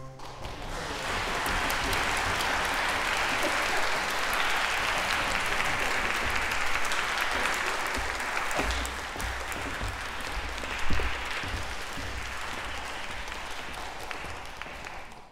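A concert-hall audience applauding at the end of a performance, steady and then thinning a little. The applause cuts off suddenly near the end.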